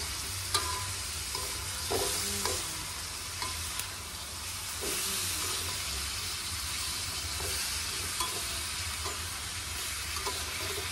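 Chopped vegetables sizzling in a metal wok over a steady low hum, with a spatula stirring and scraping against the pan in scattered short clicks.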